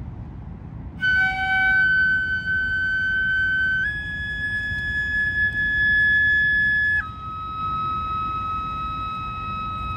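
Ryūteki, the Japanese gagaku bamboo transverse flute, playing long held high notes: it comes in about a second in, steps up slightly a few seconds later, then drops to a lower sustained note about seven seconds in.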